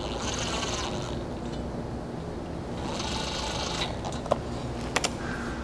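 Cordless drill-driver with a 5/32 hex bit running in two short bursts of about a second each, snugging stainless 1/4-20 button-head bolts into the aluminum crossbars. A couple of short clicks near the end.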